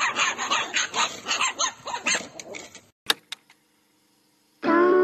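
Dog barking in quick yaps, several a second, cut off about three seconds in. After a click and a moment of silence, music starts near the end.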